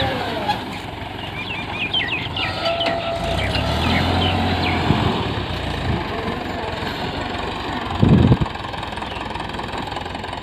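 Mahindra 475 DI tractor's diesel engine running under load while it pulls a disc harrow, the steel discs churning through soil and grass. A single loud low thump about eight seconds in.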